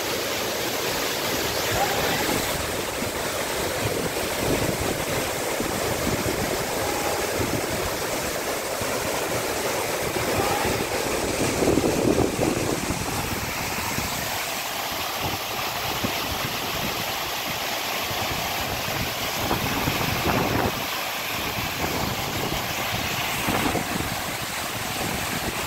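A waterfall and the rocky stream below it: a steady rush of falling and tumbling water.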